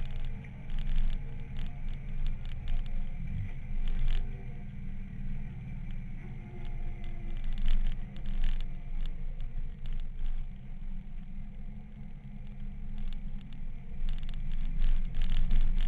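Twin-cylinder motorcycle engine running at road speed, heard through an onboard action camera as a low rumble mixed with wind noise, the loudness rising and falling. Irregular crackles and scrapes come and go throughout.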